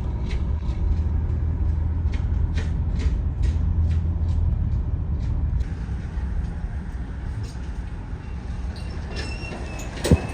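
Tow vehicle driving on the road, pulling a trailer loaded with a skid steer: a steady low engine and road rumble, with a run of short rattles through the first half and a sharp knock near the end.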